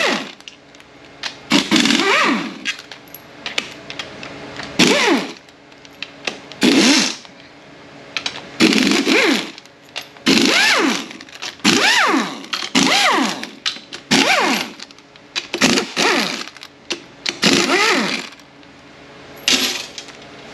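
Pneumatic air wrench spinning 10 mm bolts out of a transmission case in about a dozen short bursts, its pitch rising and falling as each burst spins up and winds down.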